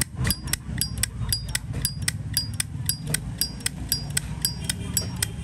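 Zippo lighter's hinged lid being flipped open and snapped shut over and over, about four sharp metallic clicks a second, many with a short bright ping. The lighter's lid sound is being tested and judged okay. A low steady hum runs underneath.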